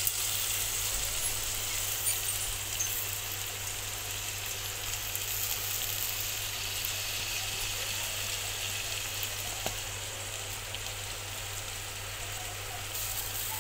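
Hot oil sizzling steadily in a steel pot as washed rice is tipped in onto browned masala, with a few light knocks of the bowl and spoon against the pot.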